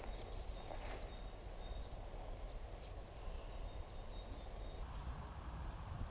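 Outdoor ambience: faint birds chirping over a low wind rumble, with a few faint high clicks scattered through it.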